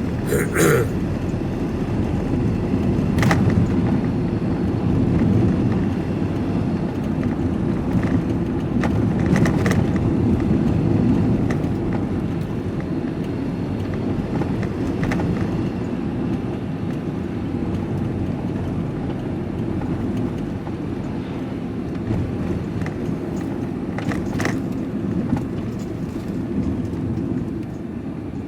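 Van driving on a road, heard from inside the cab: a steady low rumble of engine and tyres, with a few short knocks and rattles over the bumps.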